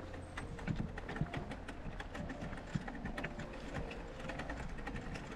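Bicycle rolling over snow: a steady stream of irregular crunches and clicks from the tyres and the bike, over a steady low rumble.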